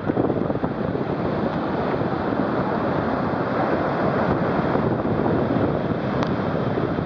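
Ocean surf washing steadily, mixed with wind buffeting the microphone.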